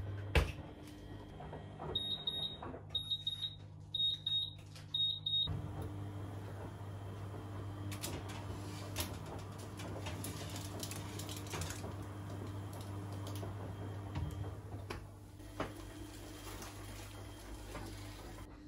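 Electric oven door clicks open, then the oven's beeper sounds four short bursts of high beeps about a second apart. A steady low hum and scattered metallic clicks follow as a baking tray is slid out along the oven rack.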